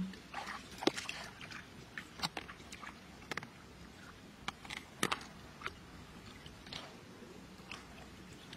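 Scattered short wet clicks and small splashes, roughly one a second, from hands working in the shallow muddy water of a flooded rice paddy.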